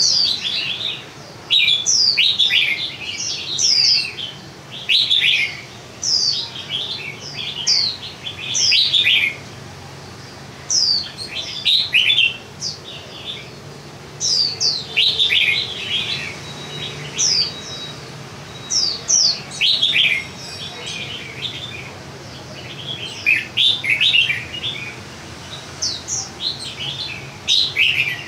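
Caged songbird singing its full song: repeated short phrases of quick, high, falling whistled notes with brief pauses between them.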